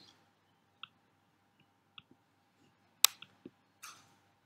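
A few soft, isolated clicks in a pause, with one sharp, louder click about three seconds in and a short hiss-like breath sound just before the end.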